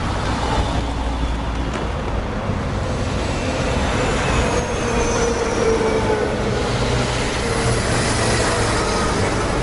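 Heavy three-axle diesel truck driving past at low speed, its engine running steadily, with a faint whine that drifts down in pitch around the middle.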